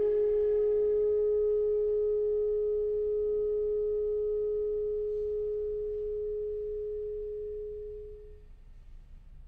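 Chamber quintet of flute, clarinet, violin, cello and piano holding a closing chord that fades slowly. The upper notes drop away first and a single middle note lingers longest, dying out about eight and a half seconds in.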